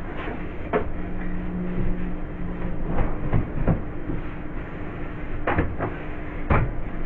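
Scattered knocks and bumps as the fridge's bottom section is cleared and cleaned, about seven over several seconds, over a steady low hum.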